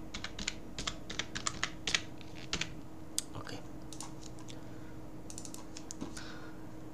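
Computer keyboard typing: a quick run of keystrokes over the first two seconds or so, then a few scattered clicks, with a steady low hum underneath.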